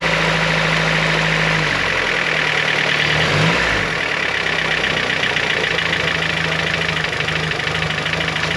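Turbocharged Honda H2B four-cylinder engine idling cold with a fast, light ticking from the cylinder head. The idle sags and picks back up about two to three seconds in. The ticking comes only at cold idle and goes away once the engine is warm; its cause is unknown, and the owner wonders whether it is the belt or the boost solenoid.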